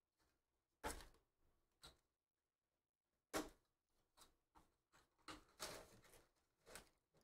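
Faint handling of a cardboard trading-card hobby box: a few sharp knocks and taps from its flaps, then a run of rustling and scraping from about four seconds in as the cardboard display lid is folded up.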